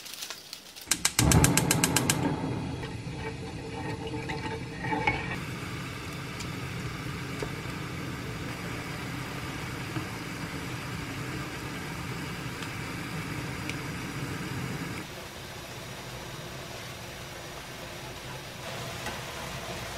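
Ramen broth boiling in a shallow pan on a gas burner, a steady bubbling noise, with chopsticks stirring the noodles. A quick run of rapid clicks sounds about a second in. The boiling drops a little in level about fifteen seconds in.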